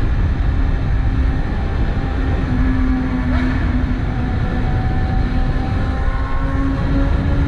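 BMW S1000RR inline-four engine running at a steady engine speed while riding, under a constant low rush of noise.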